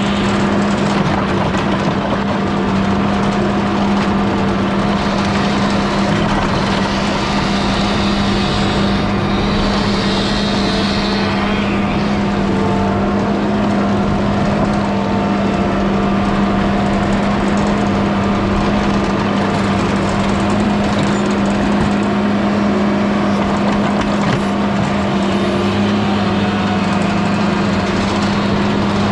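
Mini skid steer's engine running at a steady, constant speed, with a short hiss about a third of the way in.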